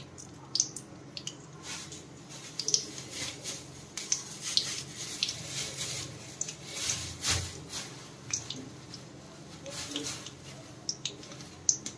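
Cumin seeds crackling in heating oil in a kadhai, a scatter of small irregular pops, in oil that is slow to get hot. A single low thump about seven seconds in.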